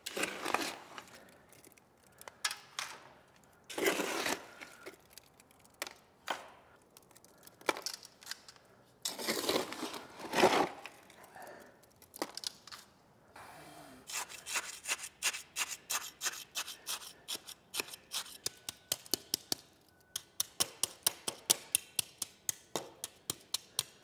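Wet concrete being scooped by hand from a mixing tub and dropped into a galvanized sheet-metal ring form, with wet scraping and sloshing. In the second half a trowel taps rapidly and steadily, about three sharp taps a second, working the soupy concrete in the form to settle it.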